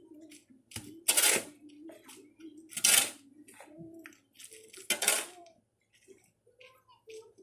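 Three loud metallic clanks about two seconds apart, each ringing briefly, like metal tools or pieces being struck or dropped.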